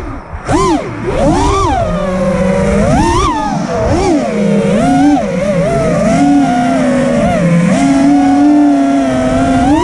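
FPV freestyle quadcopter's brushless motors and propellers whining, pitch surging up and down with each throttle punch. The whine dips briefly just after the start, then holds steadier and higher, and climbs sharply at the end.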